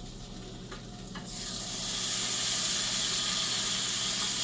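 Chicken pieces laid skin side down into hot butter in a cast iron skillet, a couple of light clicks and then a sizzle that starts about a second in, swells, and holds steady as the skin begins to sear.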